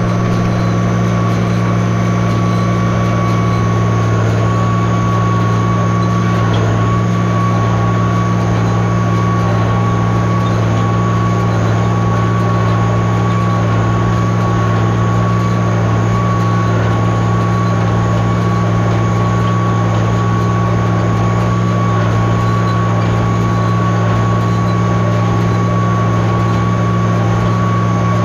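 Tractor engine running steadily at a constant working speed while pulling a hay baler, a continuous low drone with a steady high whine over it.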